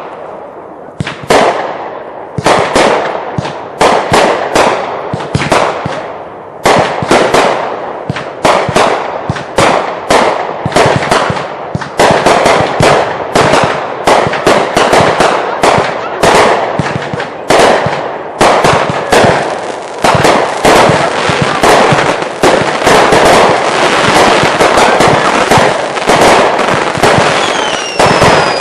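Consumer fireworks going off in a finale barrage: separate loud bangs at first, coming faster and denser until, in the second half, they run together into an almost unbroken string of booms and crackles.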